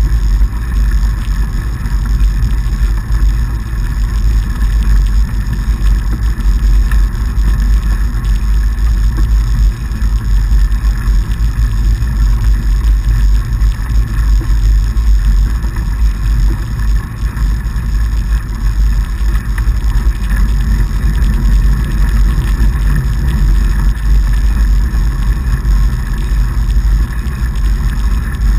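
Steady low rumble of riding noise as a fatbike rolls over packed snow, picked up by a camera mounted on the handlebar.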